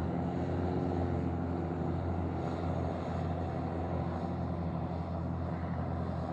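Aircraft engine running with a steady low drone, without any change in pitch.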